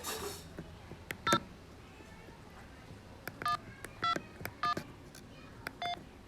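UTStarcom GSM 708 mobile phone giving short electronic beeps: five in all, three of them about half a second apart in the middle, with a few sharp clicks between them.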